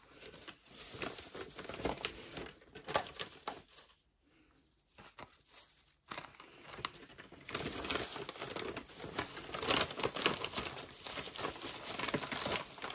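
Plastic bags and wrap crinkling and rustling as they are handled, with a short near-silent pause about four seconds in, then louder, denser crinkling as plastic wrap is pulled and gathered.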